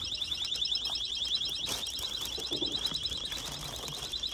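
A high-pitched electronic alarm tone pulsing rapidly, sounding steadily without a break. Clothes and hangers rustle faintly as jackets are pushed along a rack, most clearly about a second and a half in.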